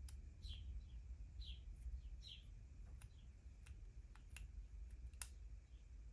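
Faint, scattered sharp clicks and ticks of a small precision screwdriver driving screws into the plastic frame and engine parts of a Tamiya 1/12 Yamaha XV1600 Roadstar model kit, with a few short high chirps in between.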